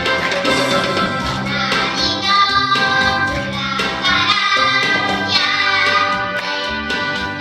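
A children's song sung with instrumental accompaniment, the voices holding and bending pitched notes over a steady backing.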